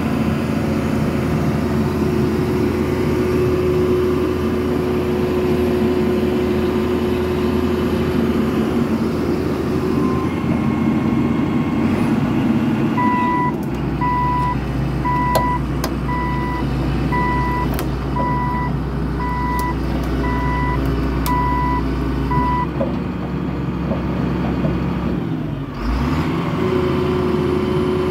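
1996 John Deere 892 ELC excavator's diesel engine running steadily with a held hydraulic tone. From about halfway, a warning alarm beeps about once a second for some ten seconds over a heavier rumble, with a few sharp clanks. Near the end the engine dips briefly, then settles back.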